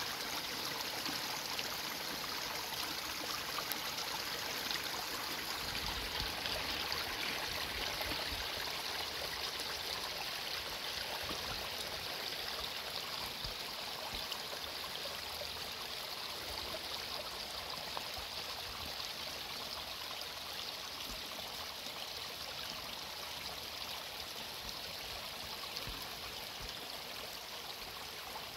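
Mountain creek flowing, a steady even sound of running water that eases off slightly near the end.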